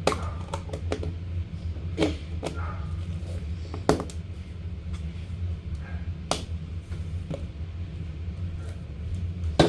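Hands squeezing and stretching slime, with scattered sharp clicks and pops a couple of seconds apart, over a steady low hum.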